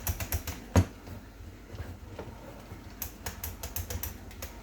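A small piece of PVC being trimmed by hand: quick runs of sharp clicks and snips. The clicks come in two bursts, one at the start and one about three seconds in.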